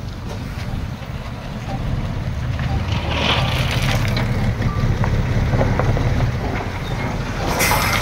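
Heavy diesel construction machine engine running, its note getting louder about three seconds in, with a short hiss near the end.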